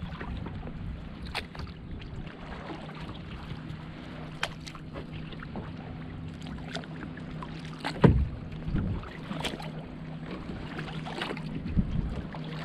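Kayak paddling: the double-bladed paddle dips and splashes with scattered drips and light knocks. The loudest is a thump about eight seconds in, over a steady low hum.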